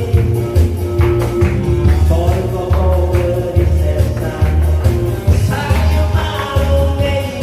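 A live song: a singer's voice over backing music with a steady bass beat.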